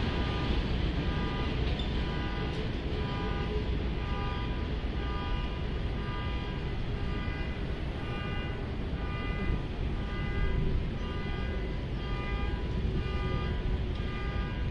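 New York City subway train approaching on an elevated IRT line: a steady low rumble, with a high-pitched tone that pulses on and off over it.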